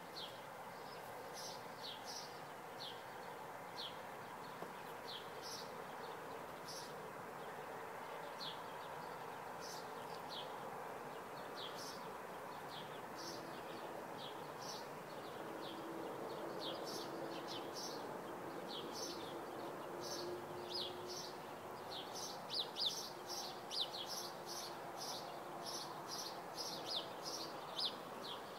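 Small songbirds chirping: short, high chirps repeated every second or so, coming thicker and faster in the last several seconds, over faint steady background noise.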